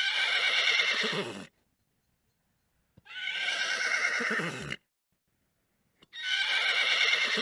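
Horse whinnying three times, each call about a second and a half long, with dead silence between them: a sound effect standing in for the toy horse Spirit.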